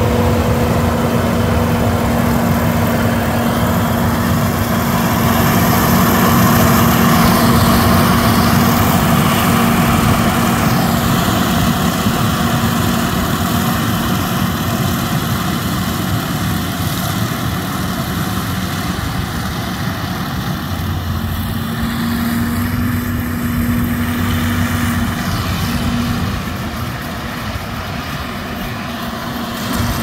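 Kukje KC100 six-row rice combine harvester running as it cuts and threshes ripe rice: a steady engine and machinery drone with a constant hum. It swells a few seconds in as the combine passes close, then eases off somewhat as it works away down the row.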